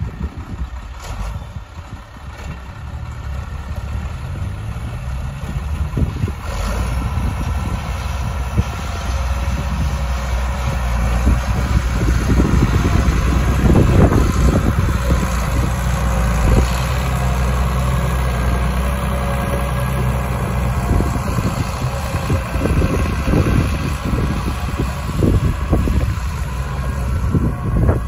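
New Holland 8340 tractor's factory-turbocharged six-cylinder diesel engine working under load while the tractor pushes soil with a front blade. It gets louder over the first half, is loudest as the tractor passes close about halfway through, and has scattered clanks later on.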